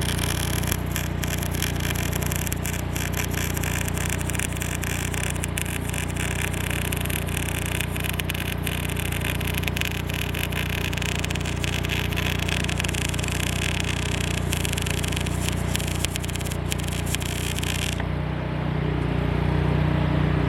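Wire-feed (MIG) welding arc crackling and spitting steadily, fed from a Lincoln LN-25 wire feeder, over the steady hum of an engine-driven generator welder. The arc cuts off about eighteen seconds in, leaving the generator running.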